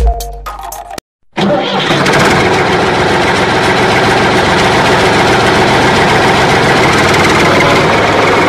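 Music runs until about a second in and cuts off. After a brief silence a motor-vehicle engine sets in, running at a steady idle with an even drone.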